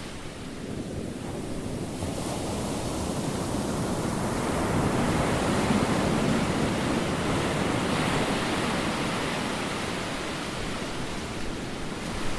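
Ocean surf: a steady wash of waves that swells to its loudest about halfway through, then eases off.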